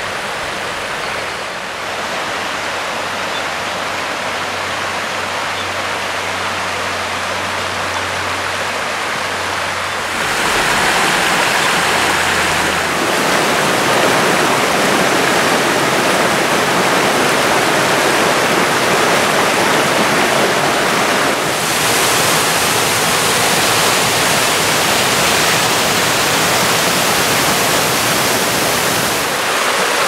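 Mountain creek running over rocks and small cascades: a steady rush of water that gets louder about ten seconds in.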